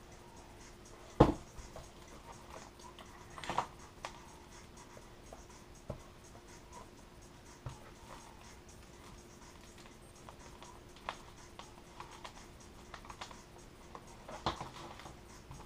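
Sparse handling sounds of laminating film and a hobby iron on a foam model wing: light rustles and scrapes, with a sharp knock about a second in. A faint steady hum runs underneath.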